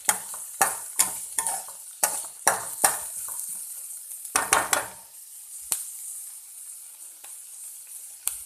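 Chopped onion sizzling in hot oil in a kadai as a spatula stirs it, scraping and knocking against the pan in quick strokes for about the first five seconds. After that the sizzle goes on steadily, with only an odd knock.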